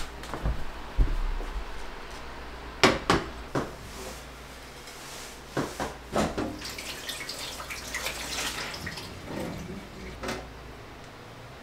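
A few sharp knocks and clatters, then a kitchen tap running into the sink for about two and a half seconds, followed by one more knock near the end.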